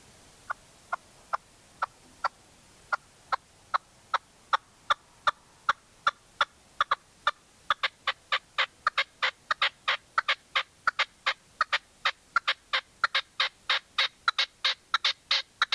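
Red-legged partridge calling: a run of short, sharp notes that starts slowly, about two a second, and speeds up to four or five a second, growing louder and higher-pitched.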